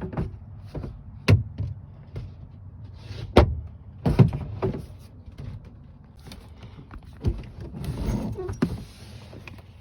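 Screws being taken out of a fixing plate inside a caravan cupboard and the plate worked free: scattered sharp knocks and clicks, with a longer scraping stretch near the end.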